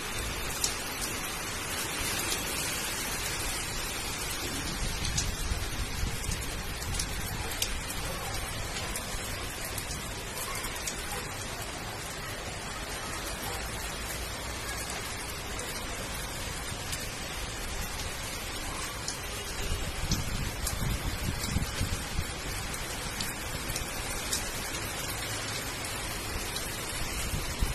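Rain falling on a concrete rooftop, into puddles and onto potted plants: a steady hiss of rainfall with scattered sharp drop ticks. A couple of low rumbles come through, about five seconds in and again near twenty seconds.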